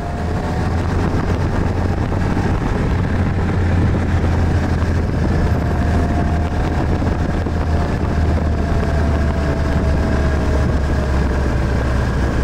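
Snowmobile engine running steadily while riding over snow: a loud, steady deep drone with a faint whine above it. It fades in over the first half second.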